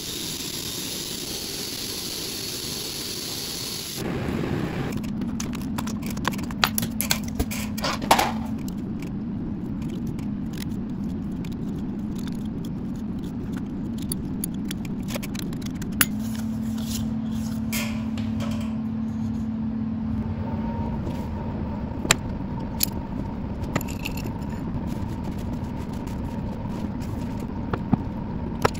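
Workshop sounds: a milling machine running steadily for the first four seconds, then handling and scraping of workpieces with scattered sharp clicks and knocks.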